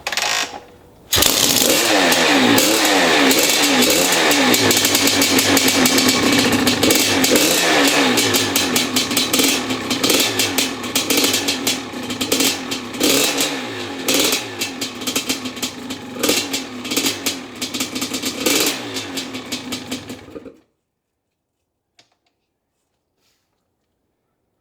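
Maico 660 two-stroke single-cylinder dirt bike engine, started on the choke, catching about a second in. It then runs with the throttle blipped, the revs rising and falling repeatedly, and cuts off suddenly near the end.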